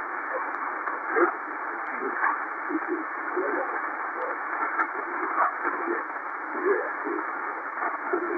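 XHDATA D-808 shortwave receiver's speaker playing a weak single-sideband voice transmission on 6676 kHz, the Australian Volmet aviation weather broadcast, half buried in steady hiss. The sound is thin and narrow, cut off below and above the voice range.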